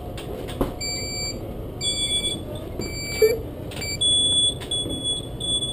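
Electric store cart's warning beeper sounding a series of short, high beeps; a second, higher-pitched series of beeps takes over about four seconds in. A single knock sounds a little past the middle.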